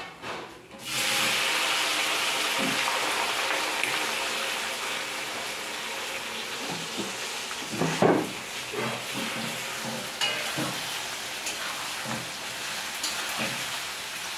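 Chopped onions tipped into hot oil in an aluminium kadai, sizzling loudly from about a second in, the sizzle slowly easing as they are stirred. A spatula scrapes and knocks against the pan, with one sharp knock near the middle.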